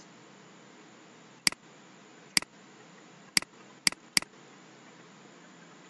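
Five sharp, unevenly spaced clicks from a computer's mouse and keyboard being worked. The first comes about a second and a half in and the last just after four seconds, over a faint steady room hiss.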